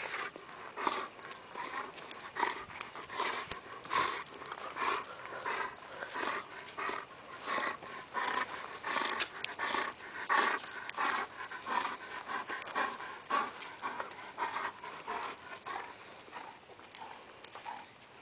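Dog panting close to the microphone, a steady rhythm of about two breaths a second that grows fainter near the end.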